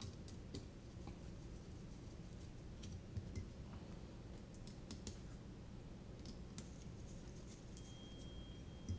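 Faint scattered clicks and light taps of a hex screwdriver turning small screws and hands handling a carbon-fibre quadcopter frame, over a low steady hum; one slightly louder knock near the end.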